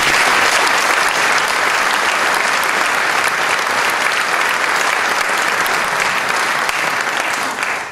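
A large theatre audience applauding, starting suddenly and dying away near the end.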